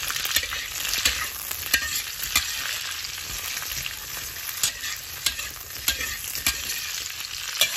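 Potato, green bean, carrot and Chinese sausage pieces sizzling in hot oil in a wok while a spatula stir-fries them, scraping and knocking against the wok at irregular moments. The vegetables are being stir-fried until half-cooked.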